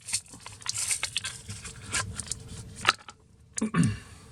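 Retail packaging of a pair of nail clippers being torn and pulled open by hand: crinkling and crackling with many sharp clicks, busiest in the first second and again near the end.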